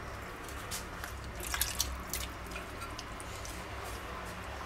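Whole button mushrooms dropping one after another into thick goulash sauce in a cast-iron Dutch oven: a scatter of small wet plops and drips, bunched a little before the middle, over a steady low hum.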